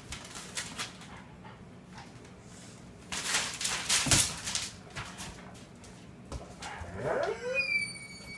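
Vizsla mother and four-week-old pups at play: scattered clicking and scrabbling on a tile floor and newspaper, with a louder scuffle and thud about halfway through. Near the end, one of the dogs gives a high-pitched whimper that rises, then slides slowly down.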